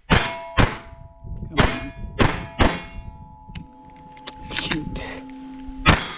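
A string of .22 rimfire pistol shots at steel targets, sharp cracks roughly every half second to second, each hit leaving the steel plates ringing with clear tones that linger for several seconds.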